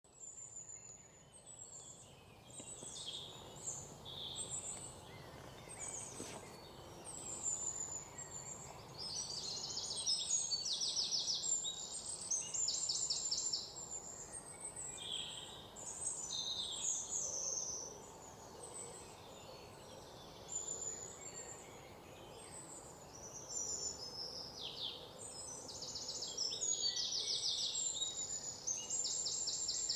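Several birds singing and calling together, with short high whistles and chirps and, now and then, fast high trills lasting a second or two, over a faint steady background noise.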